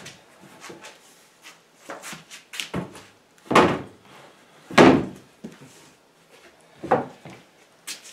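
Heavy oak boards being shifted and knocked together on a workbench: a series of dull wooden thuds, the two loudest about three and a half and five seconds in.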